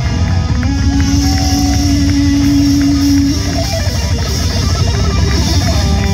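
A live heavy rock band playing, with electric guitar, electric bass and drums. One long note is held from about half a second in and bends upward a little after three seconds.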